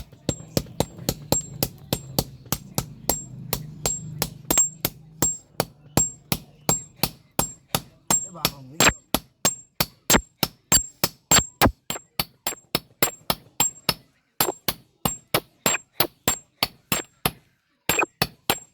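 Blacksmith's hammer striking hot metal on an anvil in a steady rhythm of about three ringing blows a second, pausing briefly twice near the end.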